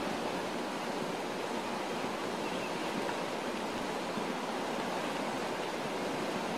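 Steady rush of fast-flowing floodwater, an unbroken noise with no pauses.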